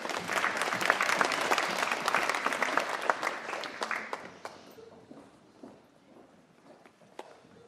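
Audience applauding, a dense patter of many hands that dies away after about four and a half seconds, followed by a few faint scattered knocks.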